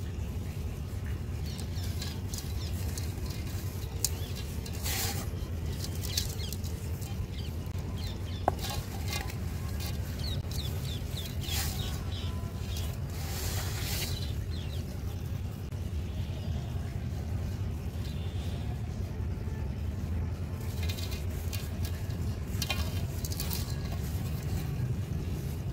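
A dry mud ball crumbled by hand into a basin of dust, with gritty crackling and the rustle of powdery soil running through fingers, in uneven spells with a few sharp clicks of breaking lumps. A steady low hum runs underneath.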